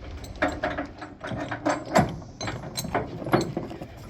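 Tie-down chains being tightened with a ratchet chain binder, giving a run of irregular metallic clicks and clanks.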